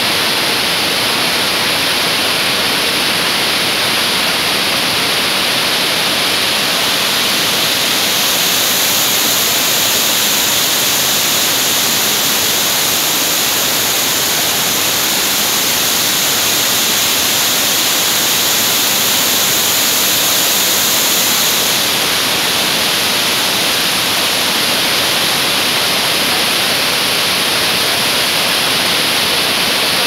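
Waterfall pouring over basalt rock ledges: a loud, steady rush of falling water. For a stretch in the middle it turns brighter and hissier as a small cascade splashes over rocks close by.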